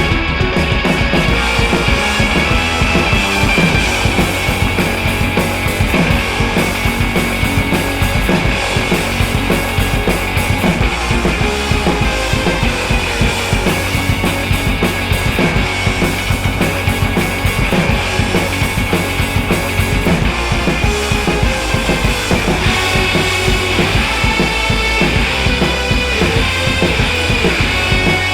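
Background rock music with a steady drum-kit beat and guitar.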